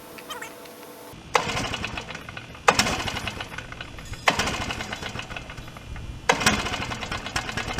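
Stihl BR600 Magnum backpack blower's four-stroke 4-MIX engine being pull-started four times. Each yank of the recoil starter brings a brief burst of rapid chugging that dies away instead of running on.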